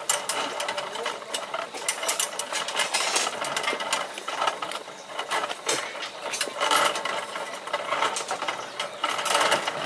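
Irregular clattering and scraping of construction work, a busy run of clicks and knocks.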